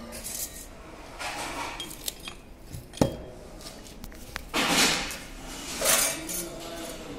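Metallic clatter and scraping from a steel plate being handled, in several short bursts, the loudest near the end, with one sharp knock about three seconds in.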